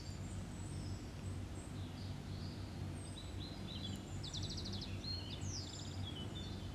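Small birds chirping and twittering faintly, with a quick rapid trill about halfway through, over a steady low hum.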